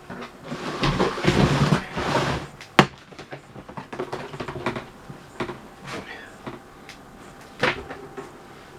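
Handling noises: rustling for a couple of seconds, then a sharp click and scattered light clicks and knocks, with a louder knock near the end.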